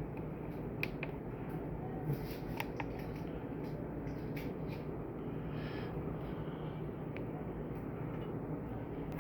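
Scattered soft clicks of buttons being pressed on a handheld lighting-panel programming unit, mostly in the first three seconds, over a steady low background hum.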